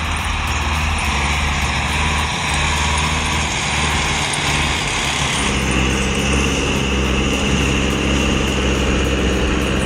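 Heavy logging vehicle's engine running steadily, its sound changing about halfway through.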